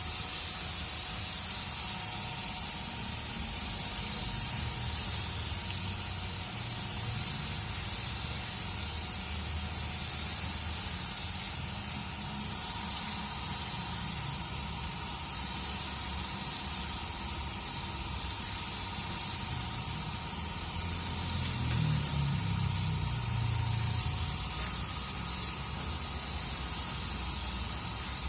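Automotive paint spray gun spraying onto a car bonnet, a steady continuous hiss of atomised paint and air, with a low rumble underneath.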